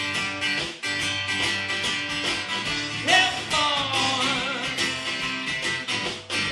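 Live acoustic rock song: an acoustic guitar strummed in a steady rhythm. About three seconds in, a man's voice comes in on a long, wavering sung note.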